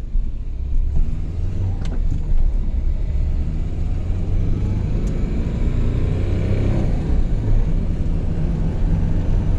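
VW Gol CHT 1.6 four-cylinder engine on a Weber carburetor, heard from inside the cabin while driving under heavy throttle. The engine noise climbs in the first second, then holds as a steady low drone without building further. The car is bogged down and won't pull past about 80, which the driver blames on the carburetor.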